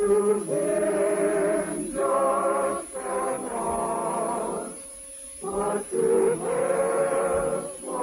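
Singing with musical accompaniment, in long held notes with vibrato, phrase by phrase, with a short pause about five seconds in.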